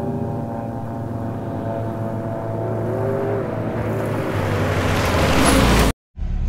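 A motor vehicle engine running and growing louder with a rising rush of noise. It cuts off suddenly near the end, and another engine sound starts.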